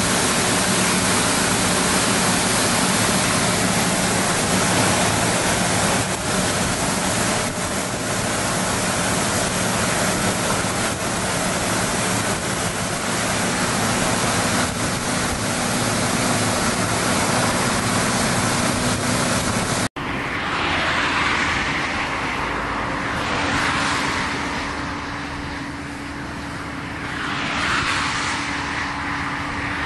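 Johnston VT800 road sweeper running with a steady, loud rushing noise of its fan and rotating brush over a low engine hum. Then a sudden cut, after which the sweeper truck drives with the brush down, a steady hum under a rush that swells and fades a few times.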